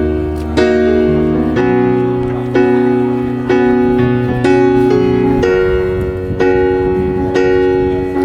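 Background music: piano-like keyboard chords struck about once a second, with a sustained low bass that drops out about a second and a half in.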